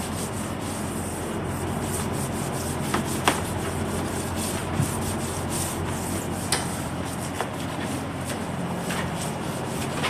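Steady hissing spray of coil cleaner being applied to an air-conditioning condenser coil, over a steady low motor hum, with a few sharp clicks.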